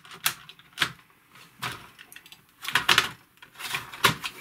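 The plastic case of a TRS-80 Model 200 laptop being handled and pressed into place, giving a series of separate plastic clicks and knocks, several of them close together about three seconds in.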